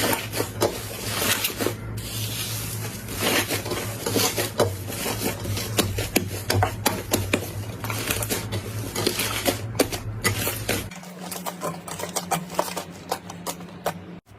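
Slime being squeezed and poked by hand, with a dense run of small crackling clicks and squishes. About eleven seconds in the sound cuts to a quieter, sparser run of clicks.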